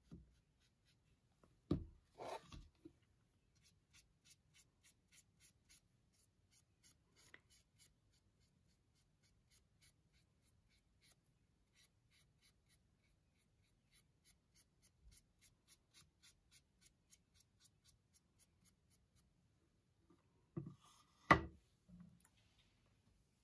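Paintbrush dragged across a canvas in short, even strokes, a soft brushing scrape about two or three times a second. A couple of knocks come about two seconds in, and a louder knock near the end as the canvas is set down flat on the table.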